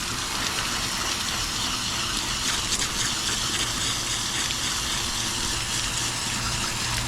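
Water spraying in a steady, hissing stream from a hose.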